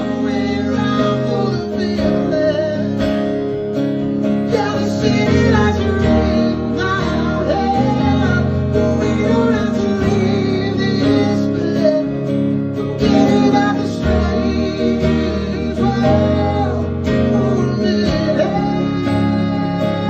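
Live acoustic guitar being strummed, with a voice singing a melody that carries no clear words.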